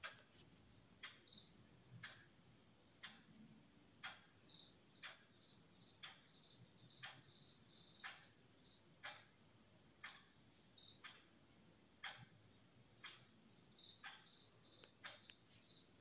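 Faint, even ticking about once a second, with lighter ticks between some beats and a quicker run of ticks near the end.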